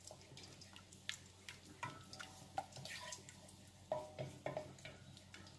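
Wooden spoon stirring a thickening béchamel sauce in a steel saucepan: faint, irregular soft clicks of the spoon against the pan and small wet sounds from the sauce.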